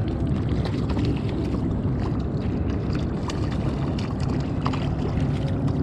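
Steady wind buffeting the microphone, with scattered small splashes from a hooked trout thrashing at the water's surface.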